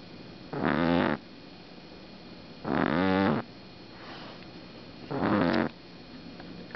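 Six-week-old pug puppy snoring in its sleep: three loud snores roughly two and a half seconds apart, each about half a second long, with a fainter one between the second and third.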